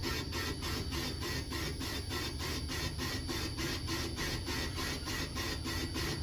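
Boring tool in a Comec ACF200 boring machine, turning at 200 RPM, scraping through the spun-bearing bore of an Eaton FSO6406 transmission housing, with an even pulse about three times a second, once per turn. The tool is not yet cutting all the way around on this light pass, so it bites only on part of each revolution.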